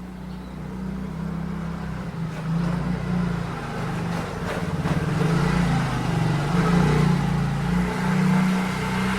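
A motor vehicle's engine running close by with a steady low hum. It grows louder over the first several seconds and eases slightly near the end.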